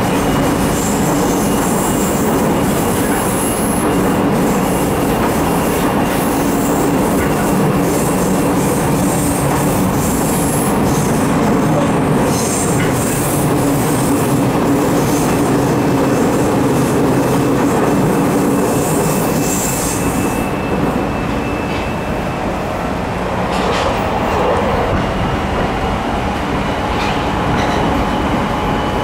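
Interior running noise of a JR 209 series 3100 subseries electric train, the GTO-VVVF car with MT68 traction motors, travelling between stations: a steady rumble of wheels on rail and motors. A high hiss drops away about 20 seconds in.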